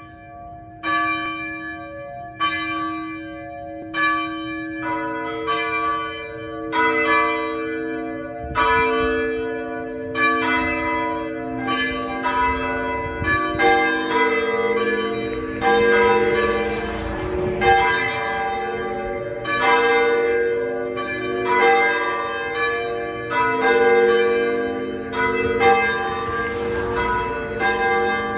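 Church bells ringing: several bells of different pitch struck in turn, about one strike a second, each tone ringing on and overlapping the next. A single bell leads at first, and more join in after about five seconds.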